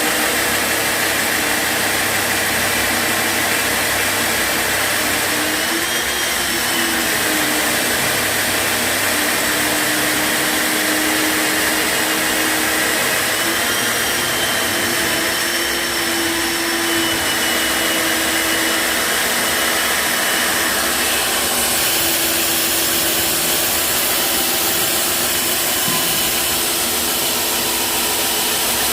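Electric concrete core drilling machine running steadily with a motor whine that sags in pitch and recovers a few times. The hiss above the whine shifts about three-quarters of the way through.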